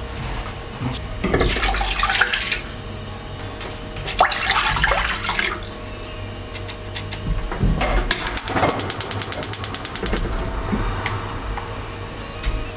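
Water poured from a ceramic bowl into a frying pan, splashing in two spells. Then a gas stove's igniter clicks rapidly, about eight clicks a second for two seconds, as the burner under the pan is lit.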